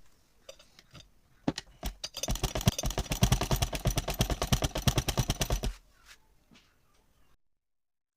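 Sewing machine running in a fast, even clatter of stitches for about three and a half seconds, with a few separate clicks before it starts and after it stops.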